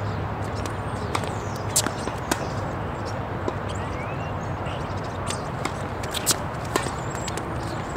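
Sharp knocks of a tennis ball being struck and bouncing on court, in two pairs, over a steady background hiss.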